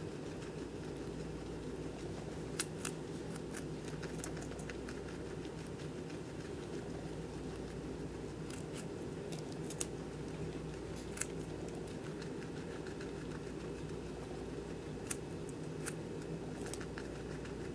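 Guinea pig eating a slice of carrot: crisp crunching bites and chewing clicks, scattered in small clusters, over a steady low background hum.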